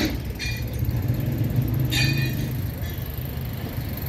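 A steady low mechanical rumble, with two brief metallic clinks, about half a second and two seconds in.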